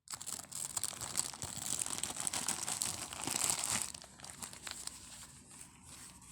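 Plastic packaging crinkling and rustling as it is handled and opened, dense and crackly for about four seconds, then softer and more scattered.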